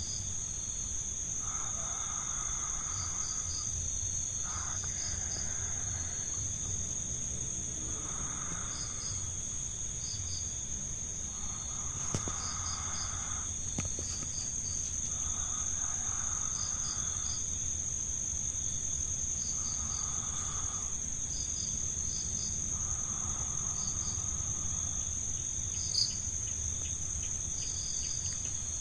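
Night insects: a steady high-pitched insect drone with crickets chirping in short repeated groups. A fainter, lower call lasting about a second recurs every three to four seconds.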